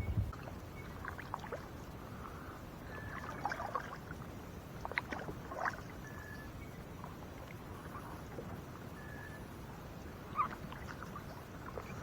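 Kayak paddling on calm water: soft paddle splashes and drips with light knocks now and then.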